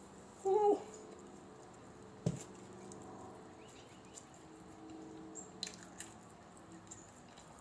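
Drinking from a mug: a short pitched mouth sound just under a second in, then a single sharp knock about two seconds in as the mug is set down. A few small clicks and rustles of handling food follow near the end.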